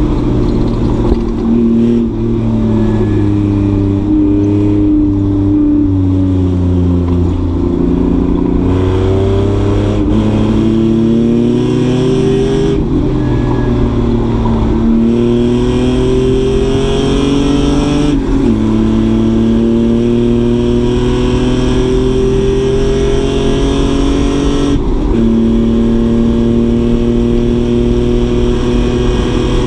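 Race car engine working hard on track. The revs fall for a few seconds, then climb steadily through the gears, with three sudden drops in pitch at the upshifts.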